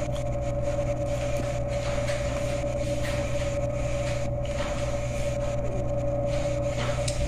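A steady electrical appliance hum, a low drone with a thin constant whine over it, under a few faint clicks of someone handling and eating food.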